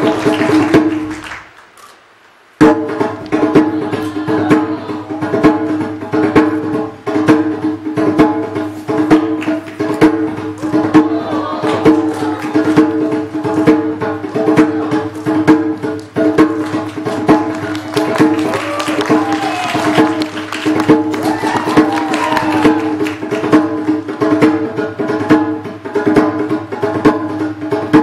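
Music of quick hand-drum strokes over a steady held drone; it drops away about a second in and comes back in abruptly a moment later.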